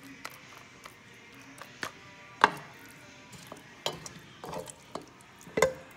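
Spoon knocking and scraping against a pan while meat sauce is scooped out and spread, a handful of irregular sharp clinks, the loudest about two and a half seconds in and another just before the end.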